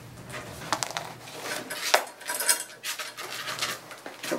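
A scatter of light clicks, clinks and plastic crinkling as a small dog in a plastic cone muzzle is held on a grooming table, with one sharper click about two seconds in.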